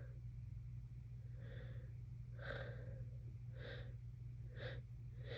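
A woman with a congested head cold taking a series of quick gasping breaths, about five, coming closer together and getting shorter: the catch of breath as a sneeze builds. A steady low hum runs underneath.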